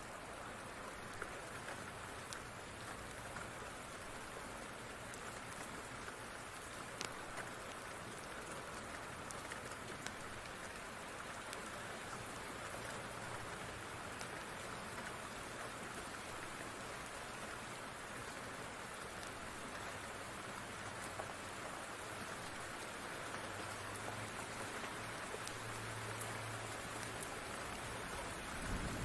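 Steady rain falling, with occasional faint sharp crackles from a fireplace fire and a soft low thump near the end.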